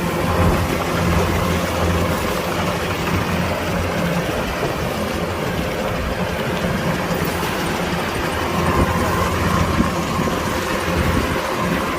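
Kubota DC-105X combine harvester's diesel engine running steadily with a low hum; a faint steady whine joins about eight seconds in.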